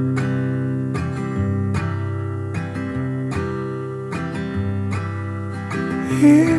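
Background music: an acoustic guitar strumming sustained chords in a steady rhythm, with a loud rising sung note coming in near the end.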